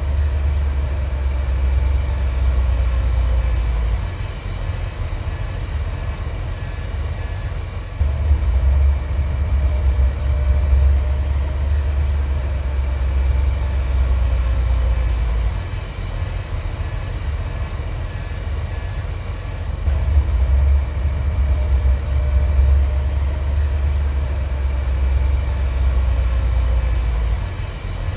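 Heavy diesel earthmoving machinery running with a deep rumble that swells under load three times, for several seconds each, and eases in between.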